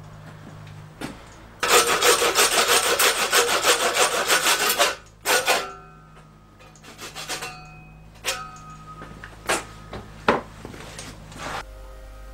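Quick rasping strokes of a tool worked on the hanging fallow deer carcass, fast and even for about three seconds, then a few single scrapes, some with a short metallic ring. Faint music comes in at the very end.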